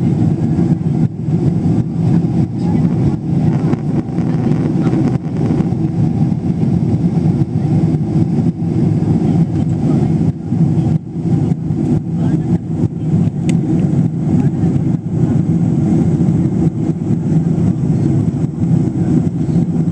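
Jet airliner cabin noise in flight: a steady, loud, low drone of the engines and the air rushing past the fuselage.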